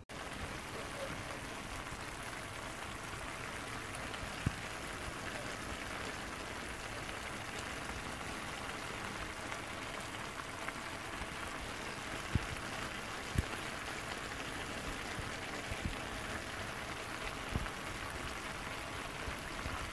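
Fusilli tuna pasta with tomato sizzling in a stainless steel pan: a steady crackling hiss with a few sharp pops.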